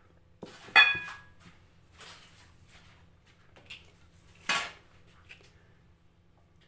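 Metal kitchenware clinking. A sharp clink with a brief metallic ring comes about a second in, and a second clatter about four and a half seconds in, with a few light taps between.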